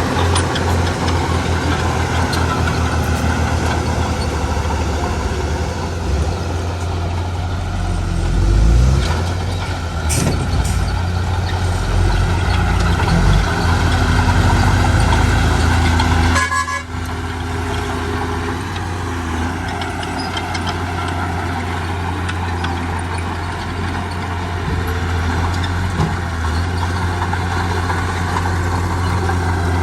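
Heavy diesel construction machinery running steadily with a deep, constant engine note, briefly rising around a third of the way in. The sound cuts abruptly about halfway through and carries on after.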